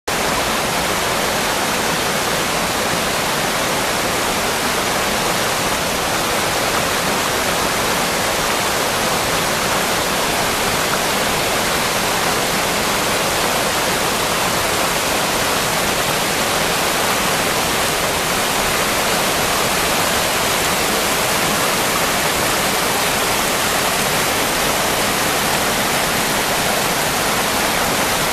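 A small river in full flow, white water rushing over rapids and a small waterfall between boulders: a steady, unbroken rush.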